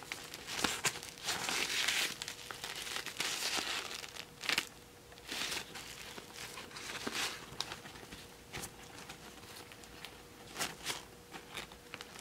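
Rustling and crinkling of a fashion doll's satin and glitter-tulle skirt being lifted and handled, in irregular short bursts, busiest in the first two seconds and scattered after. A faint steady hum lies underneath.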